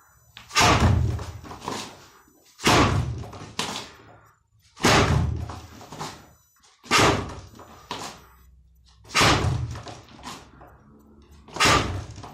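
Lead-hand jab punches (kizami zuki) landing on a spring-mounted wooden makiwara board: six heavy thuds about two seconds apart, each with a short ringing tail and a softer knock about a second after it.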